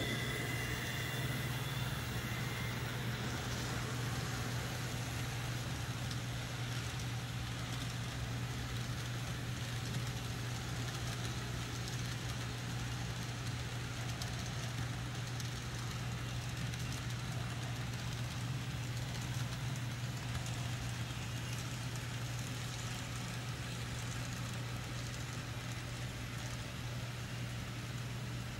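N scale model passenger train running on track: a steady hum from the Kato locomotive mechanisms under a continuous rolling noise of small wheels on rail. A faint higher whine fades in the first couple of seconds as the locomotives pass close by.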